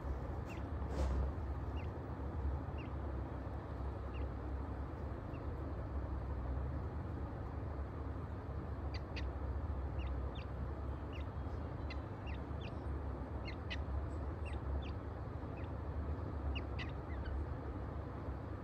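Teetar chicks peeping: short, thin, high peeps, a few at first and coming more often in the second half, over a steady low hum.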